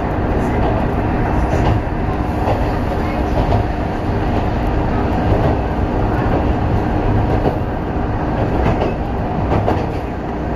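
Cabin noise inside a diesel railbus running along the line: a steady rumble of engine and wheels with a constant hum, and now and then a faint click of the wheels over rail joints.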